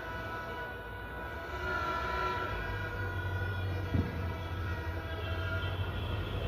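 Horns held in long steady notes over a low engine rumble that strengthens about two and a half seconds in, with a short thump about four seconds in.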